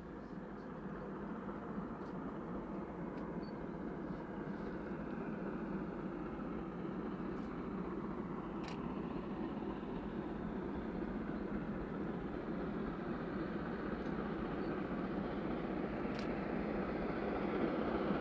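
Bavarian S 3/6 steam locomotive and its special train approaching in the distance: a steady rumble that grows gradually louder, with two short sharp clicks.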